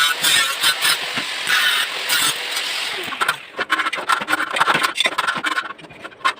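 Workshop noise of metal parts being worked and fitted into a tobacco-shredding machine: scraping and clattering, with sharp clicks and a faint squeal. It comes in stretches and eases off briefly twice.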